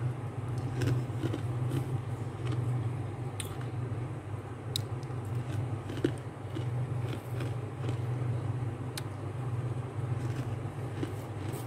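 Fingers pressing and scratching into soft, flaky freezer frost: a continuous crisp crackling crunch with scattered sharper clicks. A steady low hum runs underneath.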